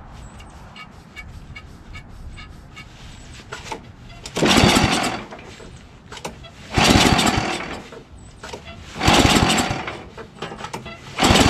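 Recoil pull-starter cranking the 11 hp Tecumseh Snow King engine of an Ariens ST1128 snowblower, on choke with the throttle up. There are three pulls of about a second each, about two seconds apart, and a fourth begins at the very end. The engine does not catch, which the owner puts down to flooding.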